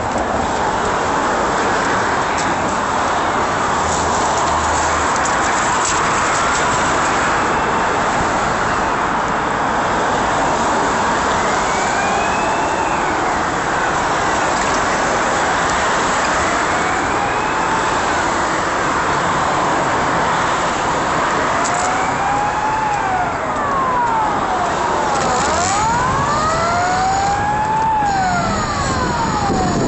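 Steady rush of wind and city traffic noise while riding, with an emergency vehicle's siren wailing up and down from about ten seconds in, repeating every couple of seconds. Near the end the wails come faster and overlap, as if two sirens or a siren and its echo.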